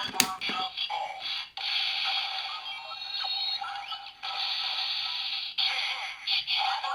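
CSM Hyper Zecter toy playing its Kagami-mode transformation audio: electronic music, voice lines and sound effects through its small built-in speaker, thin and mid-pitched with short gliding effect tones.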